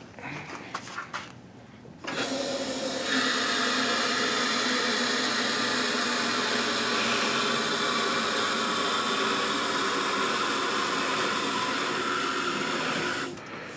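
Two-post hydraulic car lift running as the car is let down: a loud, steady mechanical whir that starts about two seconds in, gets louder a second later, and cuts off shortly before the end.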